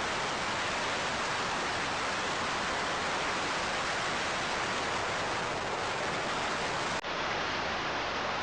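Steady rush of freefall wind noise from skydivers falling through the air. A brief click about seven seconds in, after which the rush sounds slightly duller.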